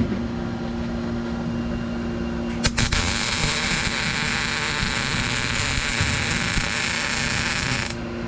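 Welding arc laying a short strip of weld on a steel console bracket at the car's floor tunnel. A couple of sharp clicks as the arc strikes about two and a half seconds in, then a steady hiss for about five seconds that cuts off sharply.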